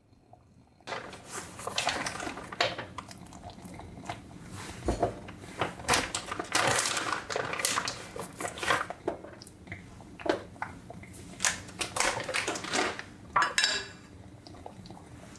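Kitchen utensils clinking and scraping against dishes in irregular clatters, starting about a second in.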